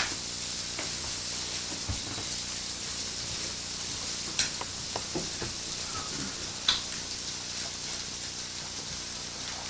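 A steady hiss of fine white grains pouring in a continuous stream onto a glass bowl and a growing heap on a wooden floor. A few sharp ticks stand out, at the start, about four seconds in and near seven seconds.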